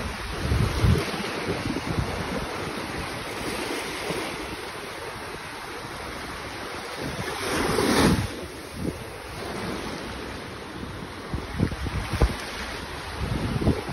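Small waves breaking and washing up a sandy shore, with a stronger surge of wash about eight seconds in. Wind buffets the microphone in low thumps now and then.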